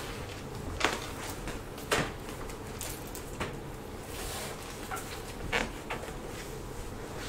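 Handling noises: scattered sharp clicks and knocks, the loudest about one and two seconds in and again just past five seconds, with a brief rustle about four seconds in.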